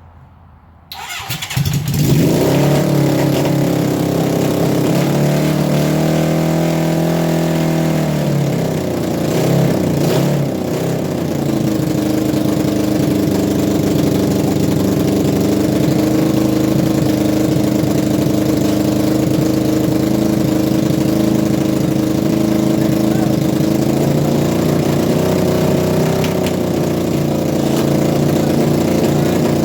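1980 Honda CB750F's air-cooled inline-four engine starting about a second in and then running at raised revs, with its pitch shifting between about six and eleven seconds in and then holding steady. The bike is in gear for a transmission test.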